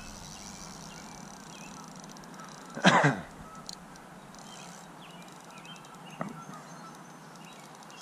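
A single loud animal call about three seconds in, falling in pitch, and a shorter, fainter call about six seconds in, over faint steady outdoor background noise with a few faint chirps.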